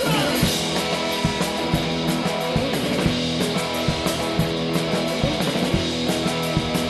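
A two-piece band playing live: electric guitar with a drum kit keeping a steady beat.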